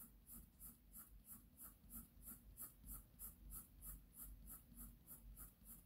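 Faint, even scratching of a graphite pencil on drawing paper as short shading strokes are laid down one at a time, about four a second.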